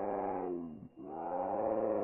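Fish-monster creature roar sound effect. A pitched roar falls in pitch and dies away just before a second in, and another roar at once rises up out of the gap.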